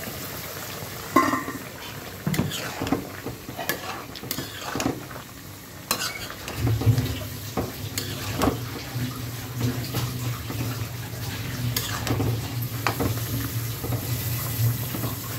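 Metal spatula stirring and scraping through simmering bottle gourd and chicken curry in an iron karahi, with a glass lid knocked down about a second in and repeated clinks of the spatula against the pan. A steady low hum comes in about six and a half seconds in.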